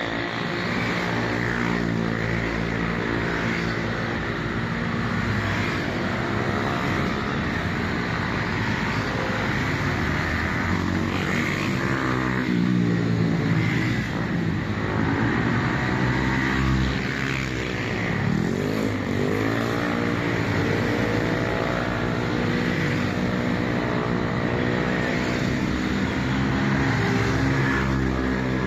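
Several motorcycle engines running and revving together as the bikes pull away. One engine's pitch drops and climbs again about two-thirds of the way in.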